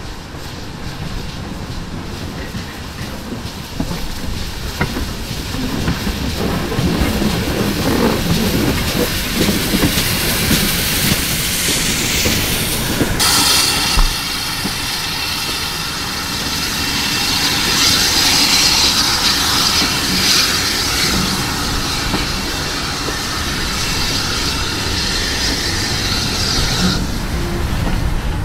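GWR 5700-class pannier tank locomotive L92 arriving with a train of coaches, the running sound building over the first half. A steady high hiss runs through most of the second half.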